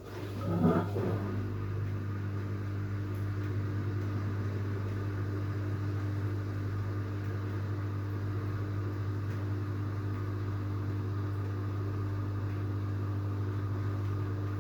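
LG FH4A8TDN2 washing machine running with a steady low hum, with a brief rising whine about a second in. The hum switches on suddenly and cuts off suddenly about fourteen seconds later.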